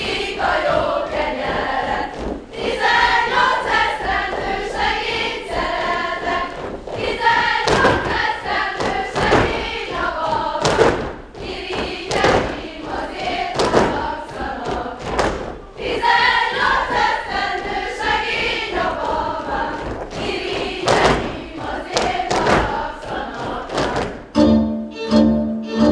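A group of girls singing a Hungarian folk song unaccompanied while dancing, with their feet thudding on the stage floor in repeated stamps. Near the end, an instrumental band with fiddle starts playing.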